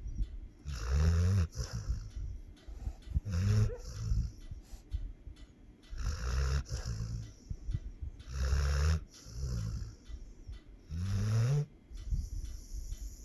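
Pit bull snoring in its sleep: low snores, one on each breath, repeating about every two to two and a half seconds.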